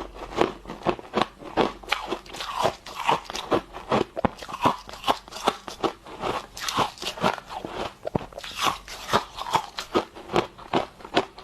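A person biting and chewing freezer frost, a steady run of loud, crisp crunches, about three a second.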